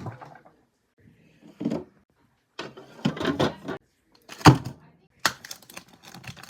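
Drinks and snacks being handled and set into a mini fridge: a series of separate clinks, knocks and packaging rustles, with a sharp knock about four and a half seconds in.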